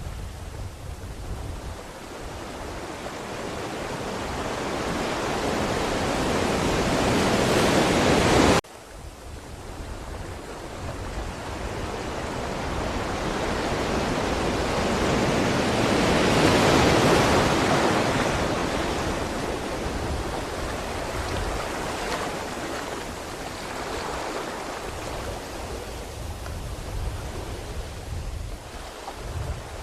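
Ocean waves breaking and washing in. One wave builds for about eight seconds and cuts off abruptly, then another swells to a peak near the middle and slowly ebbs away.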